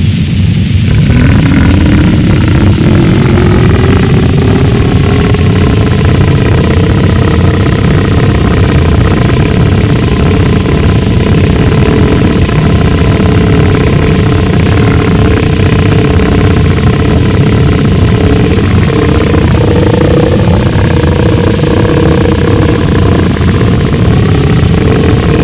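Gorenoise track: a loud wall of harsh, distorted low-end noise with an engine-like drone of several pitched tones that waver slowly, coming in about a second in.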